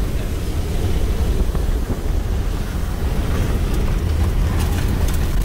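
Hurricane wind and rain buffeting a moving car, heard from inside the cabin as a steady heavy rumble, with a few faint clicks in the second half.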